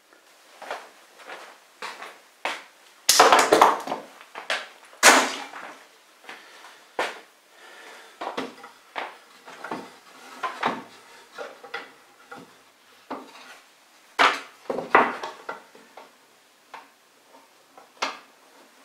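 Wooden parts being handled and fitted into a plywood drawer: irregular knocks, clatters and scrapes, loudest a few seconds in and again about three-quarters of the way through.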